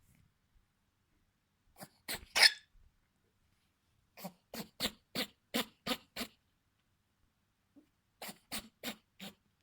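A pet sneezing in quick runs: three sneezes about two seconds in, the last of them the loudest, then a run of about seven rapid sneezes, roughly three a second, and four more near the end.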